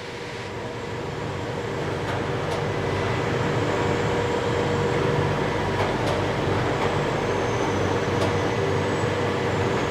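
A train running, growing louder over the first few seconds and then holding steady, with a low hum and a few sharp clicks.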